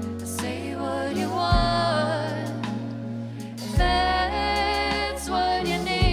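Live band playing a slow song: three women's voices singing in harmony over electric keyboard, with a deep bass note struck anew about every two seconds.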